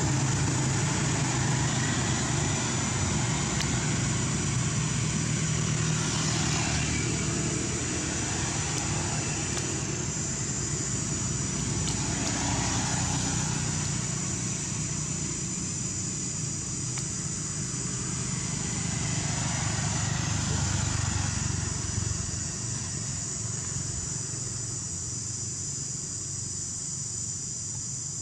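A steady low engine hum runs throughout, with a steady high-pitched insect drone over it.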